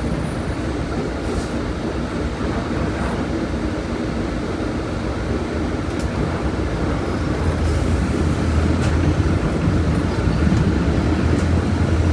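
Diesel engine of a Volkswagen Volksbus 17.230 OD bus running with a steady rumble. About seven and a half seconds in it grows louder, with a stronger low drone.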